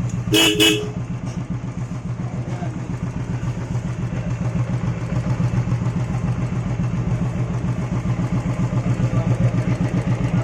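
Royal Enfield Classic 350's single-cylinder engine idling with a steady, even thump, running quietly without tappet noise after its hydraulic tappet and oil pump were replaced. A vehicle horn toots briefly about half a second in.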